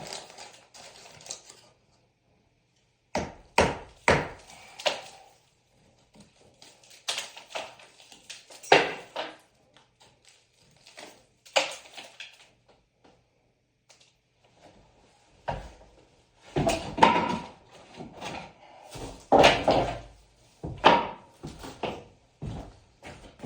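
Irregular knocks and thuds of carpentry work on a wooden wall, with rustling handling noise in between; the knocks come thicker and louder in the second half.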